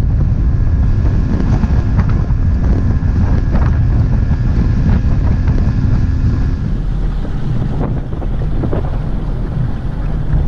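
Wind buffeting the microphone as a bass boat runs across choppy lake water, with scattered knocks of the hull on the chop. A faint steady hum under the noise stops about two-thirds of the way in.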